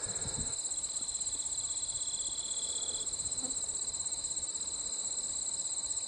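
Outdoor insect chorus: a steady, fast-pulsing high-pitched trill, with a second, lower trill that fades about halfway through.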